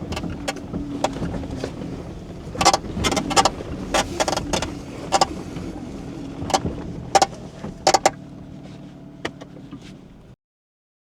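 Off-road vehicle's engine running at low speed as it creeps over rough ground, with irregular sharp clicks and knocks. The sound cuts off suddenly near the end.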